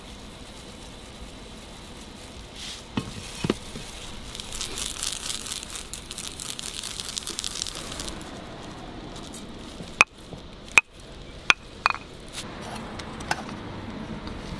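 Light kitchen clatter of utensils on stainless-steel noodle bowls. A few sharp metallic clicks, several of them close together about ten seconds in, over a steady background hiss.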